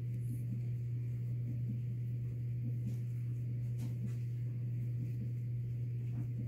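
A steady low hum, with a few faint ticks over it.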